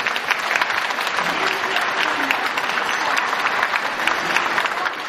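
Crowd applauding steadily, a dense patter of many hands clapping, with a few voices mixed in.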